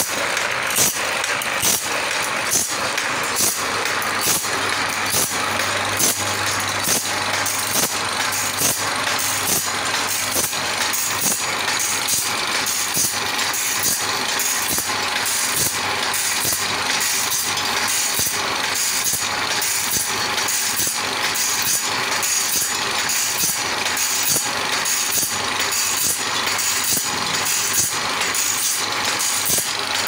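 Automatic band saw blade sharpening machine: its abrasive wheel grinds the blade's teeth one by one as the feed indexes the blade along, a steady gritty hiss broken by regular strokes about two a second.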